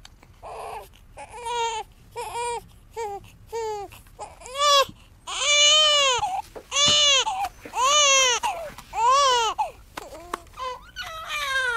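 Infant crying: short cries at first, then from about four seconds in a run of long, loud wails, each rising and falling in pitch.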